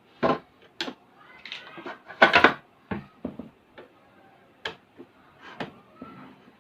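Small metal clicks and knocks as the presser-foot screw on a sewing machine is loosened and the zigzag foot and hemming-guide parts are handled, with a louder clatter about two seconds in.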